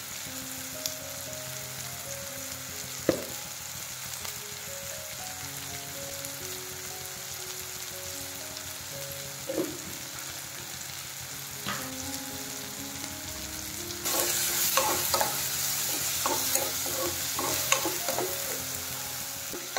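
Chopped onion, tomato and green chilli sizzling steadily in hot oil in a non-stick wok. About fourteen seconds in, a spatula starts stirring the mixture, scraping and clicking against the pan, and the sizzling grows louder.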